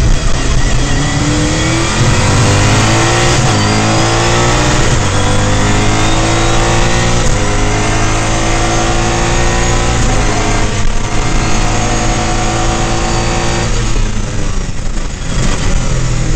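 Mosler race car's V8 engine heard from inside the cockpit, accelerating hard through several upshifts, the pitch climbing in each gear and dropping back at each shift. It comes off the throttle briefly about ten and a half seconds in, and again for a second or two near the end, before pulling again.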